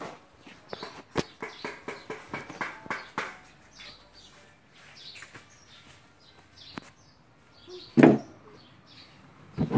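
Small birds chirping in short, repeated falling chirps. Scattered clicks and rustles fill the first few seconds, and one short, loud bump comes about eight seconds in.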